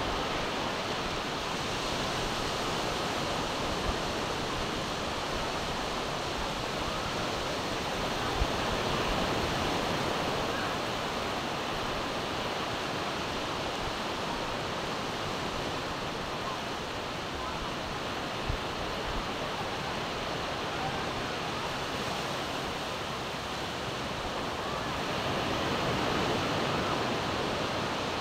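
Steady rushing of surf breaking on a beach, mixed with wind, slowly swelling and easing, with a few brief knocks.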